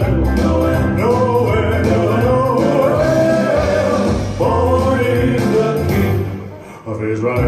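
A Christmas song: voices singing a melody over a band with a steady bass beat. The music fades down about six seconds in and comes back in just before the end.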